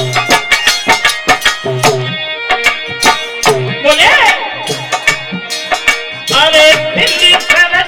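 Indian folk music: a hand drum beats a steady rhythm under sharp jingling percussion and held instrumental notes, and a voice comes in singing near the end.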